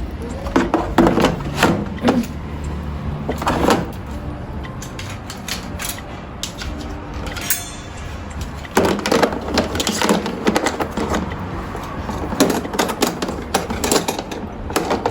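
Clatter of things being handled: many knocks and clicks in two spells, over a steady low hum, with a brief squeak a little past the middle.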